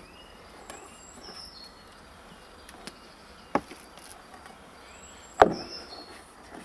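Two sharp knocks about two seconds apart, the second louder and ringing briefly, as chicken breast slices are handled in and against a stainless steel bowl of flour while being dredged; between them only a low steady background.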